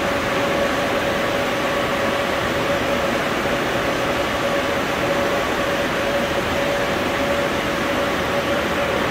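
Steady hum and hiss of an underground metro platform, with a continuous mid-pitched tone over an even rushing noise that does not change.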